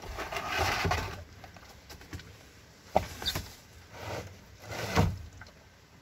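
A full plastic water jug being shoved and wrestled into a tight floor space. A scraping rustle comes at the start, then two hard knocks about two seconds apart.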